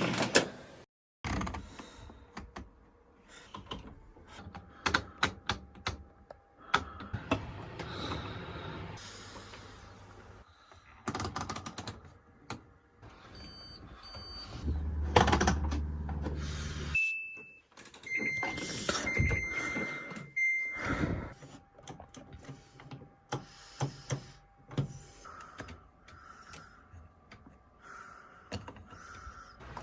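Washing machine program dials being turned through their settings, clicking and knocking at each position, with electronic beeps from the control panels in the second half. A low hum runs for about two seconds midway.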